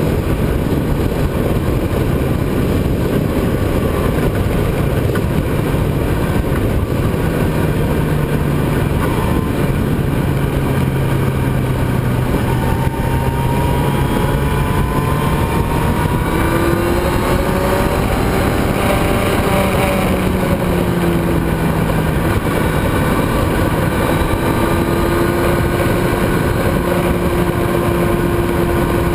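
Motorcycle at speed heard from an onboard camera: a loud, steady rush of wind over the engine note. The engine tone holds steady, then shifts up and down in pitch several times past the middle as the bike is leaned through a corner and driven out onto the straight.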